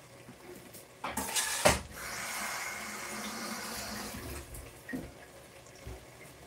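Kitchen tap running into the sink: a loud splashing gush about a second in, then water running steadily for a couple of seconds before it stops, followed by a short knock.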